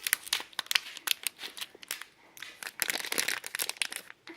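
Packaging around a replacement phone camera module being crinkled and unwrapped by hand: a quick run of small crackles and rustles, thickest about three seconds in.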